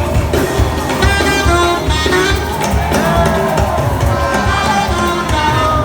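Upbeat music with a steady, regular bass beat and melodic instrument lines.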